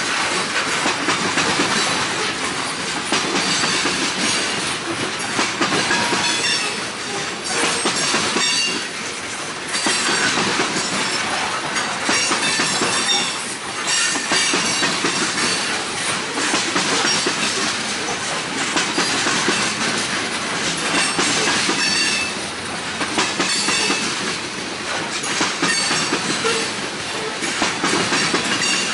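A train rolling past, its wheels clattering steadily over the rails, with short high wheel squeals scattered throughout.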